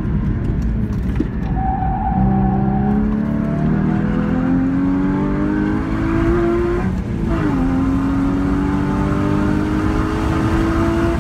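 Porsche flat-six engine heard from inside the cabin, accelerating hard on track: the engine note climbs steadily for about five seconds, drops sharply at an upshift about seven seconds in, then climbs again in the next gear.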